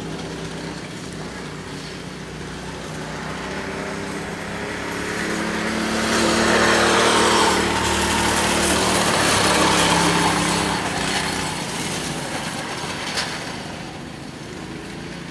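Go-kart engines running on a track. One kart passes close by: its engine grows louder, is loudest from about six to ten seconds in, then fades as it moves away.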